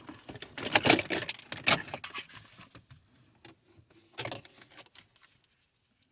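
Rattling, clicking and scraping as a climate-control cable and its plastic clip are worked loose by hand in a tight space, in irregular bursts with a short burst again near the end.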